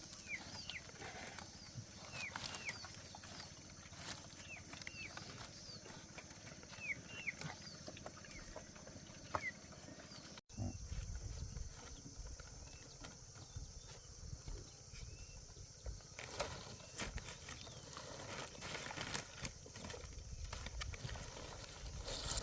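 Farm animal sounds: many short high chirps repeat over a steady high whine. About halfway there is an abrupt change to low rumbling with scattered knocks.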